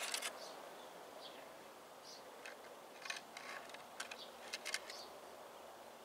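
Quiet outdoor ambience with a few faint short bird chirps, and clusters of crisp crackling clicks near the start and again about three to five seconds in.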